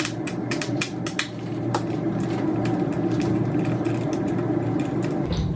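Small irregular clicks and ticks of a T10 Torx driver working the screws out of an iMac's plastic speaker housing, over a steady hum.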